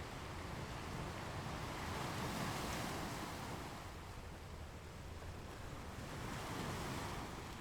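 Sea waves washing onto a shore in a slow, even hiss, swelling twice.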